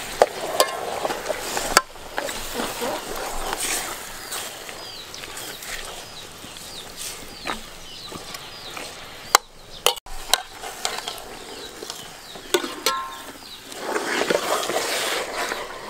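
Pork being stirred with a ladle in an aluminium pot of bubbling dark sauce: wet sizzling and sloshing, with a couple of sharp clinks of the ladle against the pot.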